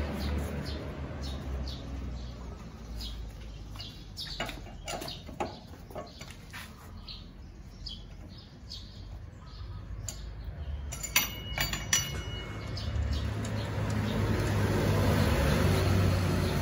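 Cross-shaped lug wrench turning the wheel nuts on an alloy wheel: scattered small metallic clicks, then a cluster of sharp ringing clinks about eleven seconds in. A low hum comes up near the end.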